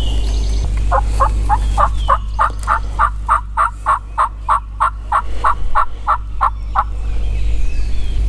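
A long run of about twenty evenly spaced turkey yelps, a little over three a second, starting about a second in and stopping abruptly about seven seconds in.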